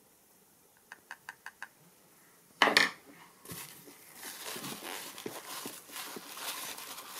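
Five light, quick taps on the glossy plastic body of a Handpresso hand pump, a loud sharp knock, then a paper towel rustling and crinkling as it rubs over the pump to wipe it dry.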